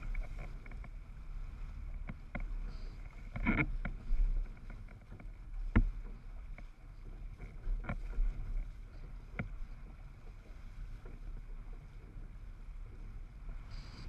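Windsurfer sailing over choppy water: a steady low rumble of wind and water rushing past the board-mounted camera, with a few sharp knocks, the loudest about six seconds in.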